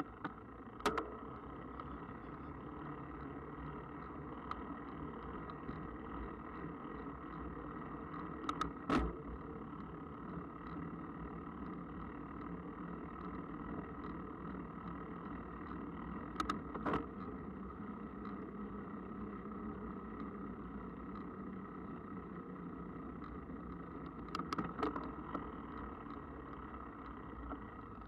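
Mountain bike riding along a path: steady rolling and riding noise, with a few short knocks and rattles from bumps.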